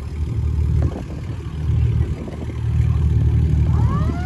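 A loud, uneven low rumble like a vehicle engine. Near the end a siren starts up, rising in pitch as it winds up.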